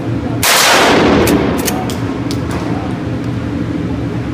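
A single Mossberg 500 12-gauge pump shotgun blast, firing a Winchester Super X shell, about half a second in. It is very loud and echoes briefly off the indoor range. Several sharp clicks follow over the next second or so.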